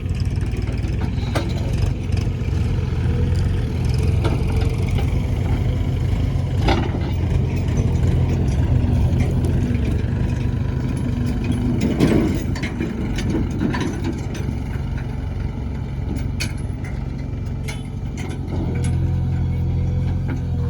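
Backhoe loader's diesel engine running steadily, with a few scattered sharp knocks, the loudest about twelve seconds in.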